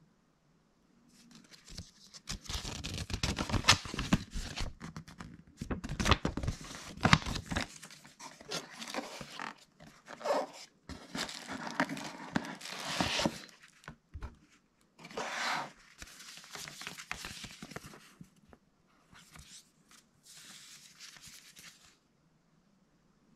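Cardboard packaging, bubble wrap and paper leaflets handled by hand: rustling and crinkling with knocks, in irregular bursts with short pauses. The bursts are loudest in the first several seconds and quieter near the end.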